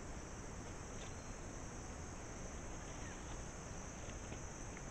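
Steady high-pitched drone of insects, with a few faint ticks.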